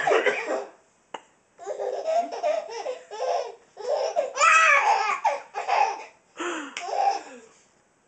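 Baby laughing hard in a run of repeated bursts, with one sharp click about a second in.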